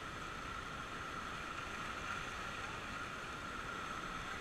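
Steady rush of whitewater rapids on the river.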